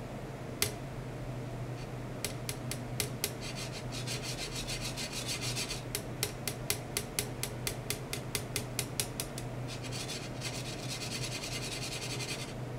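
Ultrasonic probe on a metal strip driven in pulse and sweep oscillation, heard as a rasping hiss with sharp clicks at about five a second, over a steady low hum. The rasp and the clicks start about two seconds in and stop shortly before the end.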